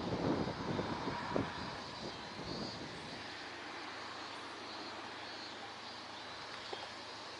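Seawater sloshing and lapping against the harbour wall, with a few small knocks in the first couple of seconds, then settling into a steady, even wash of noise.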